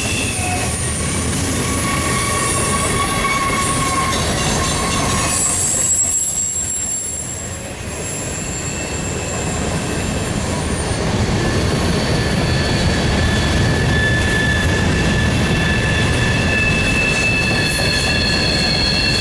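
Freight cars rolling through a tight curve: steel wheels screeching against the rails in several high steady tones over a low rumble of wheels on track. The squeal dies down briefly about six seconds in, then comes back stronger, with several tones at once.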